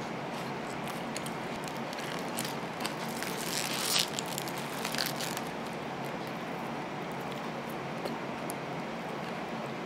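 Aluminium foil burger wrapper crinkling and crackling as the burger is lifted and bitten, loudest about four seconds in, over a steady background hiss.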